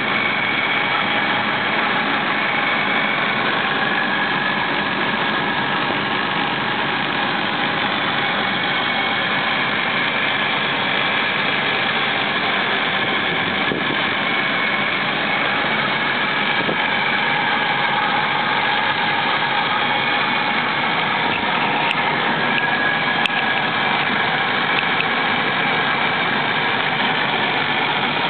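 Ford 5.4-litre Triton V8 of a 2000 F-250 Super Duty idling steadily, heard close up in the engine bay; the seller calls it in excellent running condition.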